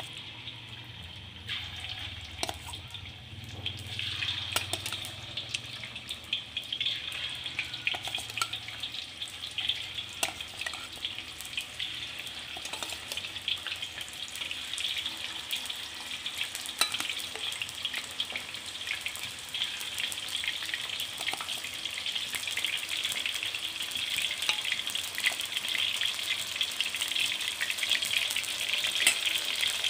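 Marinated chicken pieces frying in hot oil in a wok: a steady crackling sizzle with small pops, growing louder as more pieces go into the oil.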